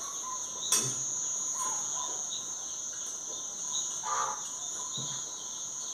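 Crickets chirring steadily at a high pitch, with a single sharp click about a second in.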